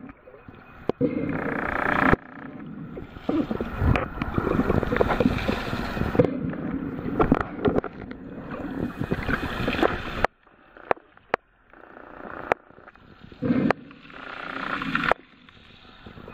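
Muffled underwater water noise, an irregular sloshing and gurgling rumble, that breaks off abruptly several times and resumes.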